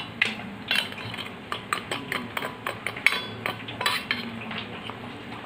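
Metal spoon clinking and scraping against a steel bowl as fried bread slices are dipped in sugar syrup: a quick run of light clinks that thins out near the end.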